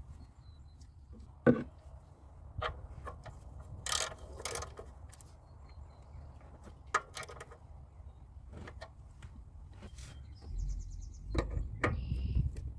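Scattered clicks, knocks and scrapes of tools and parts being handled during an oil change, with one sharp knock about a second and a half in, over a low steady rumble.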